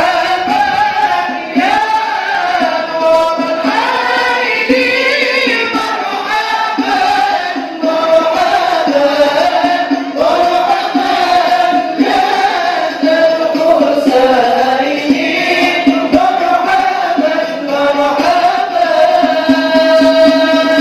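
Islamic devotional singing (sholawat for the Prophet's birthday): a voice sings a winding, ornamented melody over a steady lower held note, with a choir-like sound of many voices.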